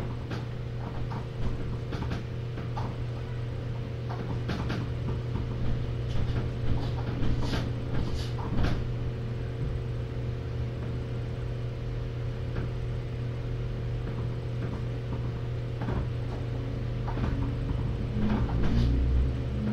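Room noise from a live cam: a steady low electrical hum, with many small clicks and knocks scattered through and a louder low rumble near the end.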